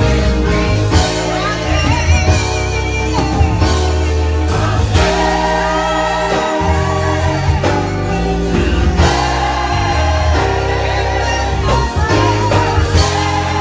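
Gospel music: voices singing with vibrato over instrumental accompaniment and a strong, steady bass line, typical of a church choir with band.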